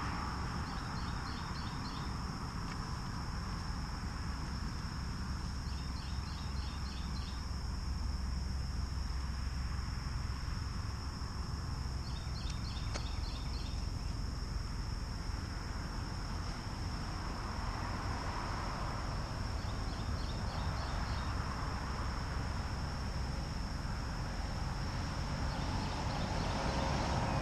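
Roadside outdoor ambience: a steady high insect drone, with a short chirping trill that comes four times, over a constant low rumble. Near the end a passing vehicle swells in.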